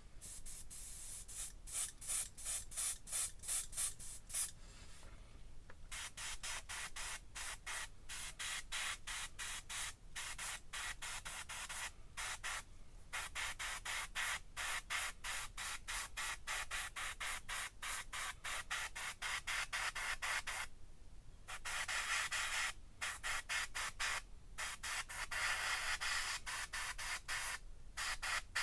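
Spray paint hissing in many quick short bursts, with a couple of brief pauses, as small model-kit parts are painted.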